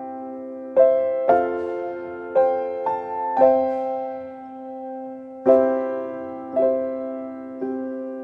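Background music: soft, slow piano or electric-piano chords, each struck and left to fade before the next, about one a second.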